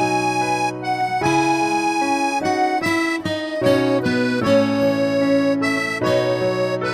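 Instrumental background music of held notes and chords changing about every second.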